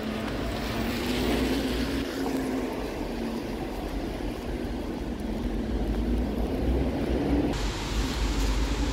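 Steady low rumble and road noise of a moving vehicle, with a faint wavering hum; the hiss changes abruptly near the end.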